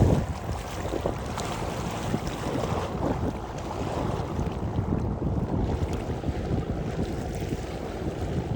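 Steady wind rumbling on the microphone outdoors, an even low rush that flutters irregularly.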